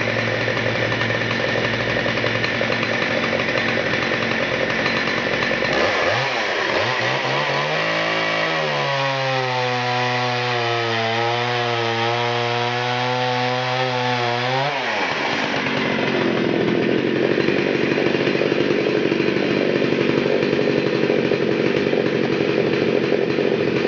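Husqvarna 61 two-stroke chainsaw running at high revs while cutting rounds off a log. About a third of the way in its note bends and settles into a clear, steady engine tone for several seconds, then turns rougher and louder for the rest.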